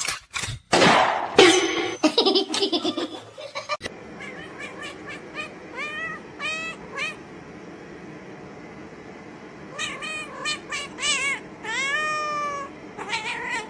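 A cat meowing: several short meows that rise and fall in pitch, then one longer, falling meow near the end. These follow a few seconds of knocks and rustling.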